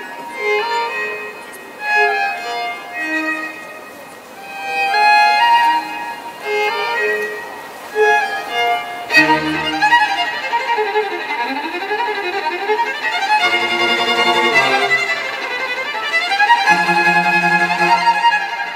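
A street violinist plays a melody on the violin, at first alone. About nine seconds in, a fuller accompaniment with bass notes well below the violin's range joins, a backing track from a loudspeaker, and the violin carries on over it.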